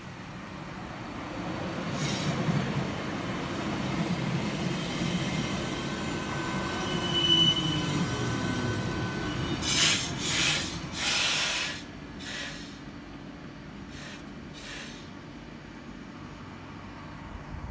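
SL Roslagsbanan X10p electric multiple unit pulling in: a rumble of wheels and motors that builds as it comes alongside, with a falling whine as it brakes and a brief high squeal about seven seconds in. Around ten seconds in come several short, loud hisses as it stops, then a quieter steady hum from the standing train.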